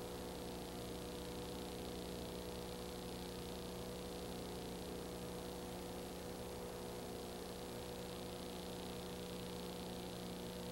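Steady electrical hum with several even tones, under a constant hiss, and nothing else: the background noise of a silent home-movie transfer.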